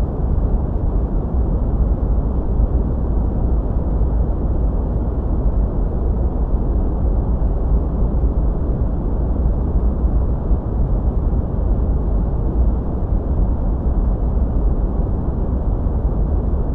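Wind buffeting the camera microphone outdoors: a steady, low rumbling noise with a flickering level and no distinct events.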